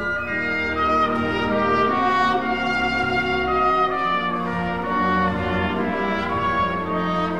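Orchestral music, with brass instruments carrying the melody in held notes.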